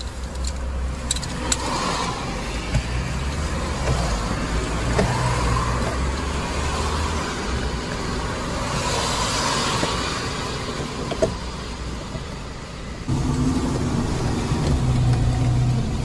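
Screws being driven back into a car's plastic lower dashboard trim with a hand screwdriver: scattered clicks and rustling. Underneath is a steady low hum that changes suddenly near the end.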